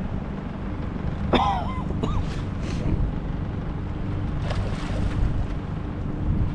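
Wind buffeting the microphone on an open boat, a steady low rumble, with a faint steady hum joining about a second in. A brief high cry sounds about a second and a half in.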